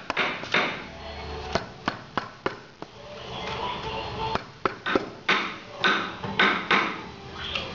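Wooden mallet knocking a carving chisel into a wood panel: a run of sharp knocks at irregular intervals, a few a second, with music playing in the background.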